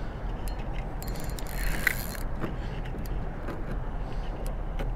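Wind rumbling on a body-worn camera microphone, with a few light clicks and a short rustle about a second and a half in.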